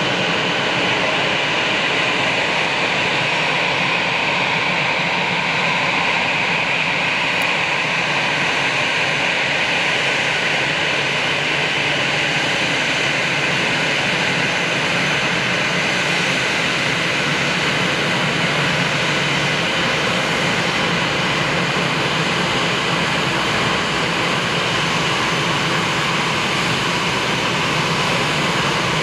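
Airbus A320's CFM56-5B turbofan engines at taxi idle, a steady jet whine over a low rumble as the airliner taxies past.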